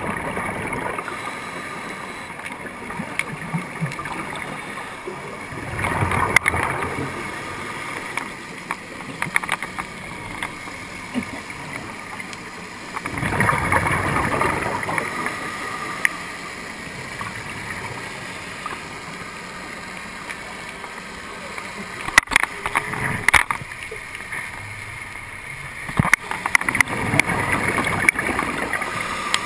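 Scuba regulator exhaust bubbles heard underwater through a GoPro housing: muffled bubbling swells roughly every seven seconds over a steady hiss, with a few sharp clicks.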